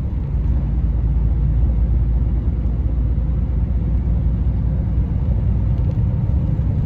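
Scania 113 truck's six-cylinder diesel engine and road noise heard from inside the cab while cruising: a steady low rumble.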